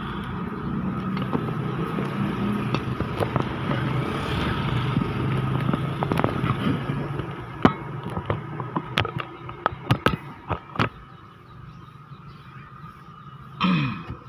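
A vehicle engine running steadily, then a quick series of sharp knocks and clicks, and a short falling-pitched sound near the end.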